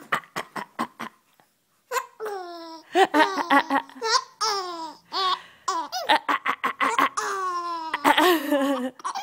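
A nine-week-old baby laughing: a string of short pitched laughs, many falling in pitch, after a few short clicks in the first second or so.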